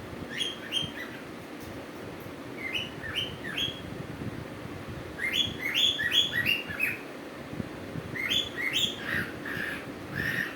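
Cuckoo calling: groups of short, high notes that step up and down in pitch, repeated several times. The busiest and loudest run comes about halfway through.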